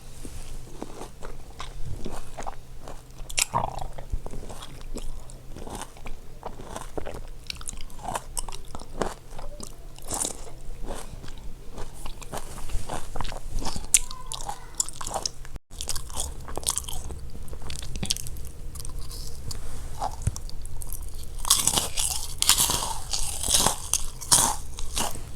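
Mouth sounds of someone drinking water: sips, swallows and wet clicks in quick, irregular succession.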